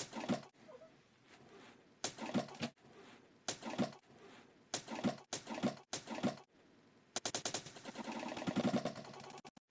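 Maine Coon cat vocalising: six short pitched calls about a second apart, then, from about seven seconds in, a long rapid pulsing call.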